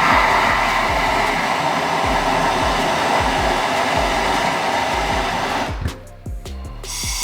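MAPP gas torch flame hissing steadily while heating a half-inch copper pipe and cap for soldering. The hiss dips for about a second near the end, then comes back.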